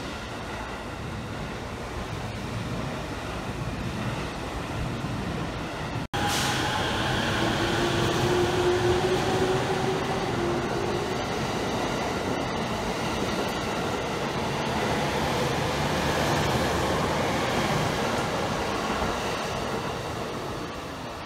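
Steady station platform noise, then, about six seconds in, a JR East E231-series electric commuter train pulling out: its traction motors whine with a gently rising pitch as it gathers speed past the platform, over the running noise of the wheels, which slowly fades as it draws away.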